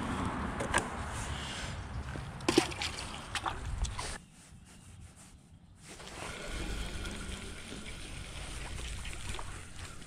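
Hands handling fishing tackle and a caught crappie: scattered clicks and knocks in the first four seconds, the loudest about two and a half seconds in. After a quieter moment a low steady rumble follows.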